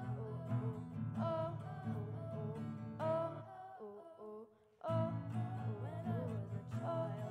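Live stage music: a steady rhythmic acoustic guitar accompaniment under a sung melody. About halfway through, the accompaniment drops out for just over a second, leaving the melody faint, then comes back in.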